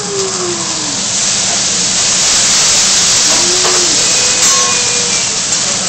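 Liquid poured onto a hot teppanyaki griddle hissing and sizzling loudly as it flares up into flame, the hiss swelling about two seconds in.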